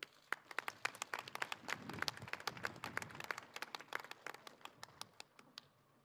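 Audience applause, individual claps distinct, thinning out and stopping about five and a half seconds in.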